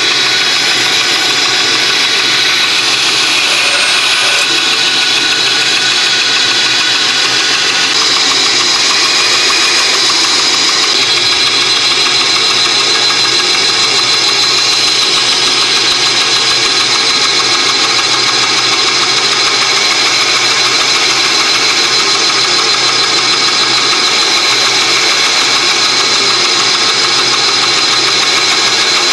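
Small Ingco benchtop band saw running steadily while its blade cuts short kerfs into a thin plywood strip. The blade-guide bearings give a loud, steady high whine, which the owner puts down to his homemade cutting guide.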